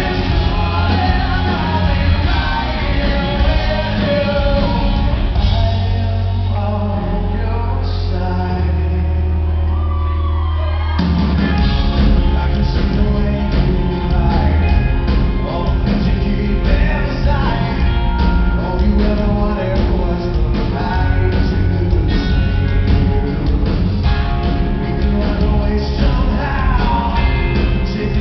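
Live rock band with a male lead singer, playing loud in a large hall. A few seconds in, the band thins out to a held low note. About eleven seconds in, the full band comes crashing back in.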